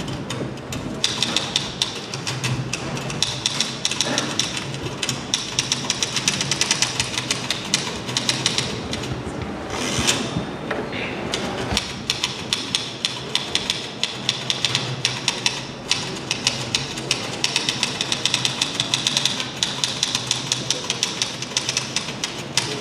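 Two manual typewriters played as musical instruments: a fast, continuous clatter of keystrokes, with one louder clack about ten seconds in.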